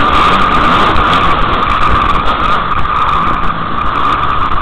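Motocross dirt bike engine under the helmet-camera rider, running hard, its pitch rising and falling with the throttle over the track, mixed with wind and rough noise from the ride.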